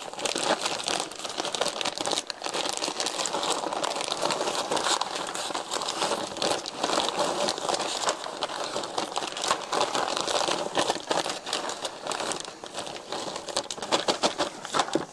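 Plastic zipper-lock bag crinkling without pause as hands shake and knead it, the small hardened spruce pitch pieces and cornstarch inside shifting against the plastic.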